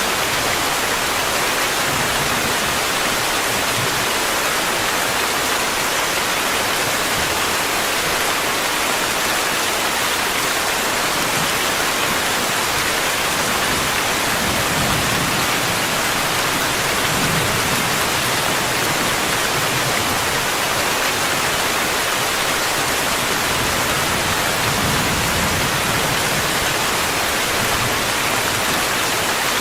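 Steady heavy rain, a dense even hiss of falling water with a few soft low swells.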